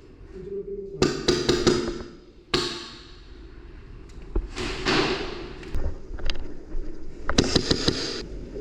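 Airsoft gun firing: a short rapid burst about a second in, a single shot a little later, and another rapid burst near the end.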